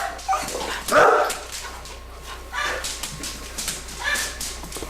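A dog barking and yipping in a few short separate bursts, the loudest about a second in.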